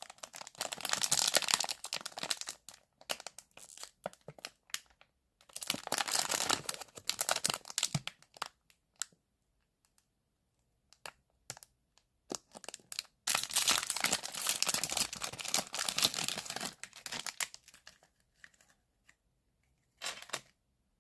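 Plastic or foil blind-bag wrapper being crinkled and torn open by hand, in three long bouts of rustling with scattered light clicks and short pauses between.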